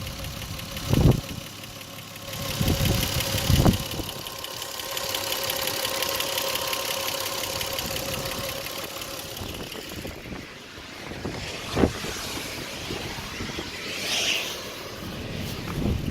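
1998 Lexus GS300's 3.0-litre straight-six engine running with a ticking noise, the kind that gets louder the faster it revs. A few short thumps sound over it.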